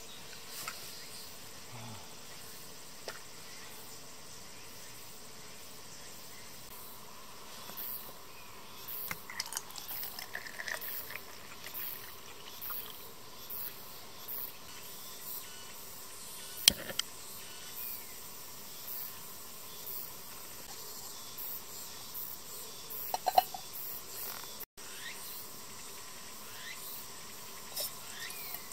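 Steady forest ambience of insects chirping, with a few scattered clicks and knocks from handling camp gear. Near the end, water starts pouring into an aluminium kettle.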